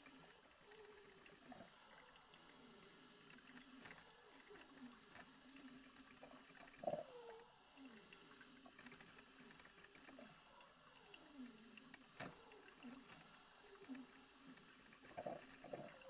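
Braun Type 3104 drip coffee maker brewing: its heater gurgles and bubbles quietly in short, wavering pitched tones, with a louder gurgle about seven seconds in and a few more near the end.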